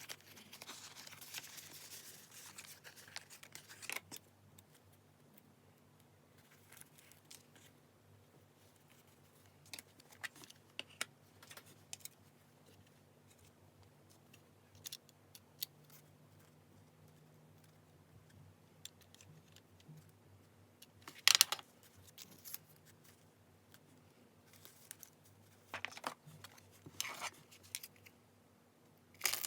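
Paper being handled and cut with scissors: soft rustling and crinkling for the first few seconds, then scattered snips, taps and paper sounds, with a sharp loud snip about twenty-one seconds in and a few more near the end.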